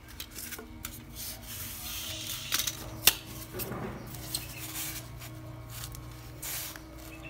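Styrofoam blocks scraping and knocking against each other as they are pressed into a box around a GEX aquarium air pump, with one sharp click about three seconds in. The pump's steady hum runs underneath.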